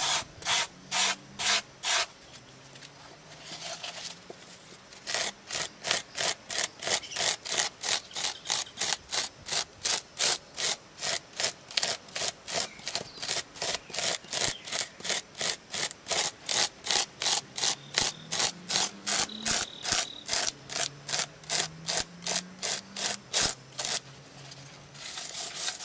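Styrofoam-type insulation foam being hand-shaped, scraped in quick back-and-forth strokes of about three a second. A short run of strokes starts it, a pause follows a few seconds in, then a long even run goes on until near the end.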